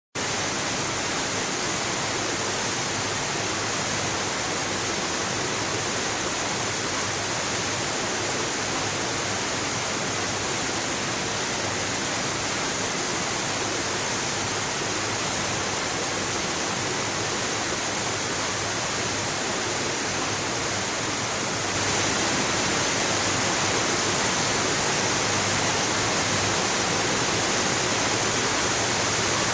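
Waterfall: steady noise of falling water with no breaks, getting a little louder about 22 seconds in.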